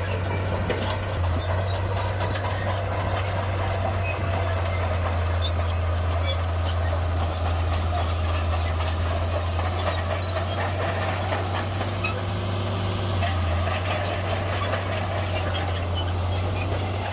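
Heavy earthmoving machine's diesel engine running with a steady low drone, with faint metallic ticks and squeaks over it.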